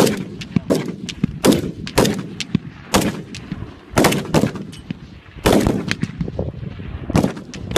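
Rifle shots at an outdoor firing range: irregular single shots, loud ones mixed with fainter ones, roughly one or two a second, each with a short echo.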